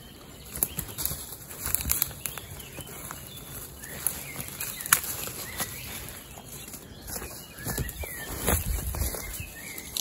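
Irregular footsteps and rustling through undergrowth on a steep, rough mountain path, with a few louder knocks and low thumps near the end.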